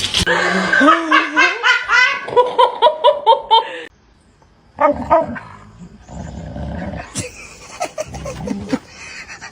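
A dog barking and yipping in a fast run of short, high, rising calls for about four seconds, then, after a brief pause, a few more scattered barks.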